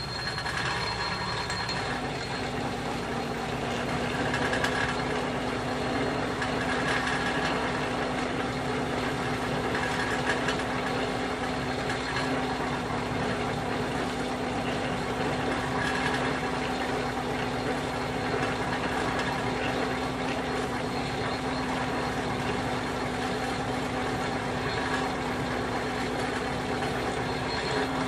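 Atlas metal lathe running as a drill in the tailstock is fed into the spinning workpiece: a steady machine hum, with a steady tone that comes in about two seconds in.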